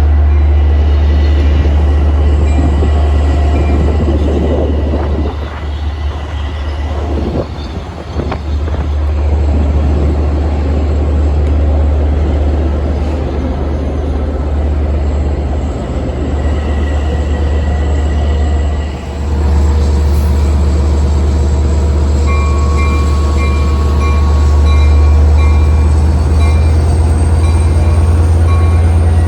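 Long Island Rail Road train running past, a loud steady low rumble with rail noise. In the last third a high beeping repeats about twice a second.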